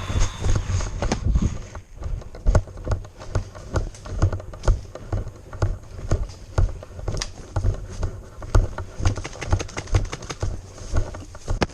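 Footsteps of a player moving on foot, an irregular string of knocks and low thuds about two or three a second, with sharper clicks of gear in between.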